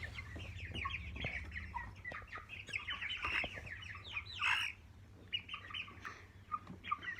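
A flock of young broiler chickens peeping and clucking, with many short high chirps and a louder call about four and a half seconds in. There are light taps throughout and a low rumble for the first two seconds.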